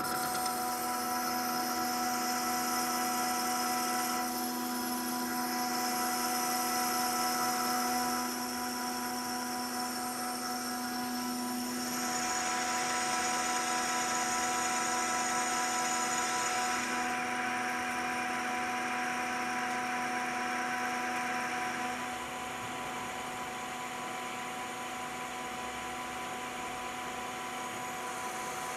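Metal lathe running, its drive giving a steady whine of several fixed tones, while a turning tool cuts the face of a metal part. The hiss of the cut rises and falls every few seconds and drops off about three quarters of the way through.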